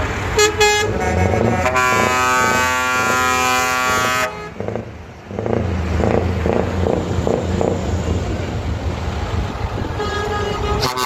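Truck air horns sounding in a parade: a couple of quick toots, then one long multi-tone blast of about two and a half seconds that cuts off suddenly. After it comes the low, pulsing rumble of a heavy Scania truck's diesel engine pulling past.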